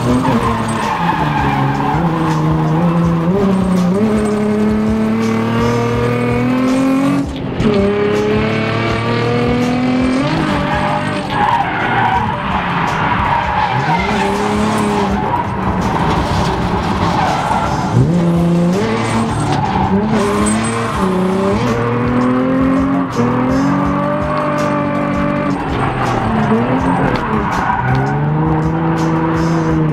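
A car engine revving hard, its pitch climbing and dropping over and over, with tyres skidding and squealing, as in a drift run.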